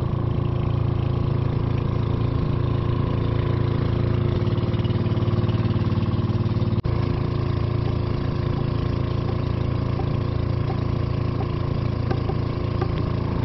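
Engine of a motorized outrigger boat running steadily at cruising speed, a loud even drone, broken briefly about seven seconds in.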